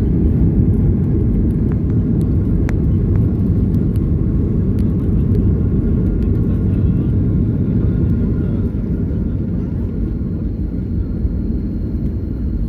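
Airliner rolling down the runway just after touchdown, heard from inside the cabin as a loud, steady low rumble of wheels and engines that eases off a little over the last few seconds as the plane slows.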